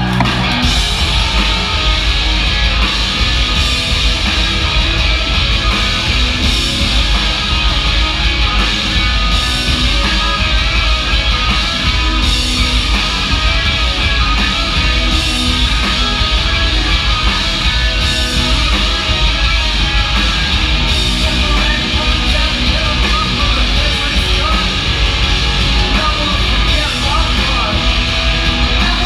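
Punk rock band playing a song live, electric guitars over a full band, loud and unbroken.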